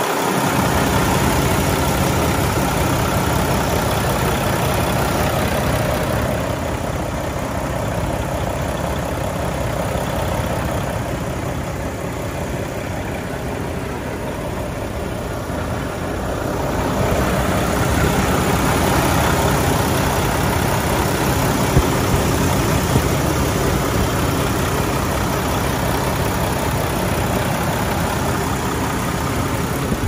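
Semi-truck diesel engine idling steadily, heard close to the open engine bay, with two brief clicks a little past the middle.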